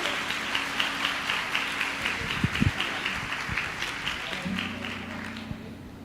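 Audience applauding as a song ends, many quick claps that fade away over the last second or so, with a faint low held note underneath.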